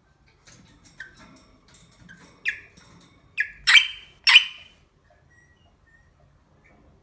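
An animal's short squeaky calls, building to three loud, harsh squawks in quick succession near the middle, then quiet.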